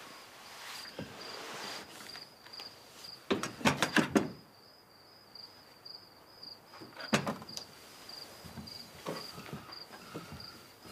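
Crickets chirping steadily, about three chirps a second. Over them come sharp clicks and knocks, a cluster of them about three to four seconds in and a few more later.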